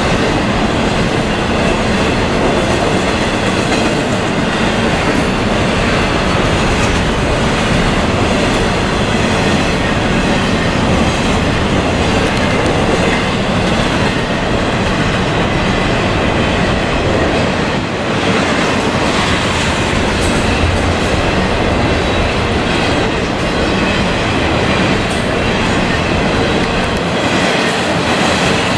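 CSX double-stack intermodal freight train's container cars rolling past: a steady, loud rumble and clatter of steel wheels on the rails.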